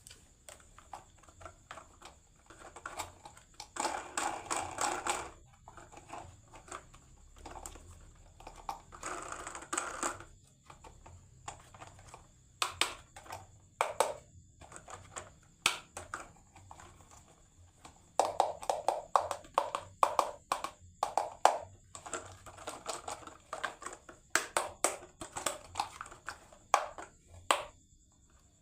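Marbles rolling and clacking down a HABA wooden marble run: runs of quick rattling clicks as they roll over the track pieces, with scattered single knocks as they drop and hit wood.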